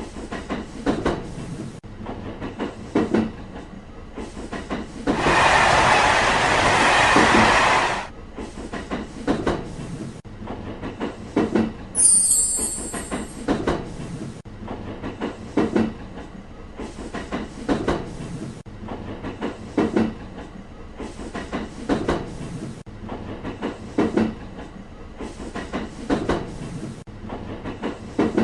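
Train running on rails, its wheels clacking over rail joints in a steady rhythm about every two seconds. A loud rushing noise lasts about three seconds near the start, and a brief high wheel squeal comes about halfway through.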